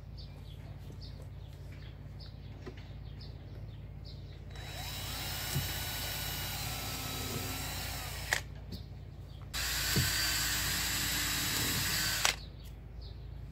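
A cordless DeWalt drill boring through a stainless steel strip in two runs of about four and three seconds. Its motor whine wavers under load, and each run ends in a sharp click.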